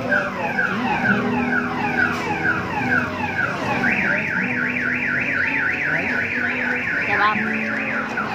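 Car alarm sounding and cycling through its tones: a run of falling whoops about twice a second, then from about four seconds in a fast high warble.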